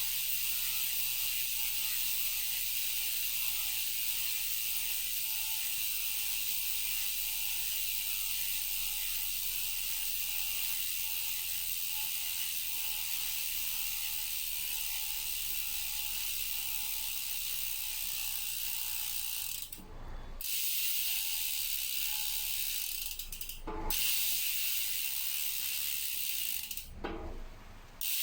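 Speedone bicycle rear hub freewheeling as the wheel spins, its pawls clicking so fast that they blend into a steady, high buzz. The buzz breaks off briefly about twenty seconds in, again near twenty-four seconds and once more near the end.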